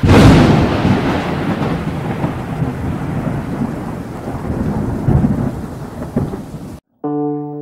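Thunder sound effect: a sudden loud crack, then a long rolling rumble that slowly fades and swells again twice before cutting off abruptly. Soft synthesizer music chords begin near the end.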